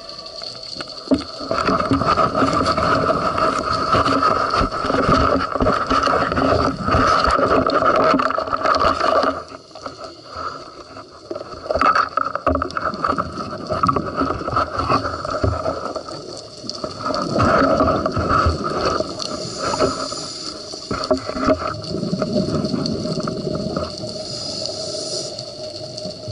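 Underwater sound of a scuba diver's regulator breathing: exhaled bubbles gurgling and rushing in spells, with a quieter gap about ten seconds in.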